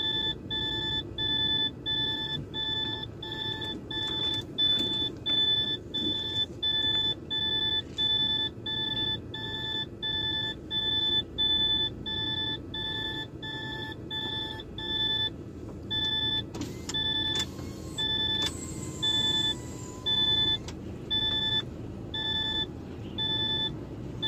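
A truck cab's warning buzzer beeps steadily at about two beeps a second, slowing to about one a second after some fifteen seconds, over the low rumble of the DAF diesel idling. A short hiss sounds near the three-quarter mark.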